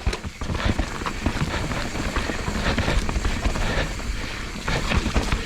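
Mountain bike clattering down a wet, rocky, rooty trail: tyres, wheels and frame rattling and knocking over rocks and roots in a steady stream of small impacts and low thumps.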